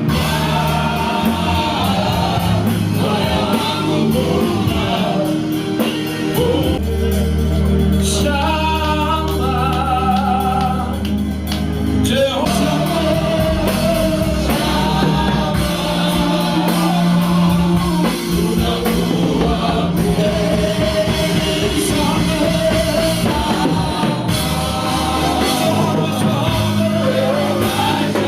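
Gospel praise song: voices singing over a band with sustained bass notes.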